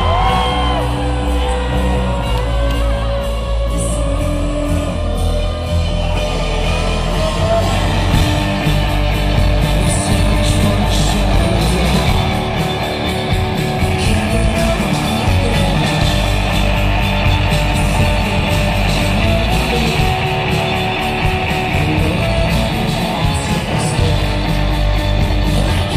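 Live rock band playing loud: distorted electric guitars, bass guitar and drums, with singing over it at times.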